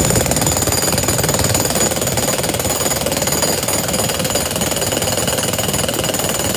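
Topshak TS-DH1 brushed electric demolition hammer running without a break, its chisel bit hammering into a chunk of concrete, with a steady whine under the hammering.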